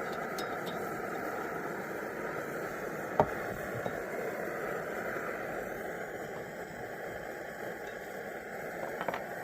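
1946 Coleman 530 pocket stove's pressurised gasoline burner burning steadily under a pot of water. A single sharp knock about three seconds in, and a couple of light clicks near the end.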